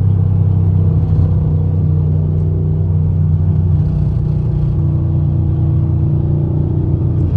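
Car engine and tyre noise heard inside the cabin while cruising at highway speed: a steady, loud low drone with no change in pitch.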